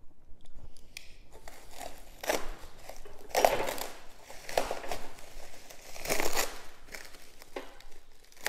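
Plastic packaging wrap being pulled off and crumpled by hand: irregular crinkling and rustling with several louder tearing surges, and a brief sharp noise right at the end.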